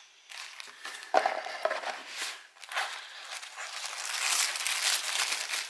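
Tissue paper rustling and crinkling as it is unfolded inside a cardboard box, getting denser and louder over the last couple of seconds. A single sharp knock about a second in.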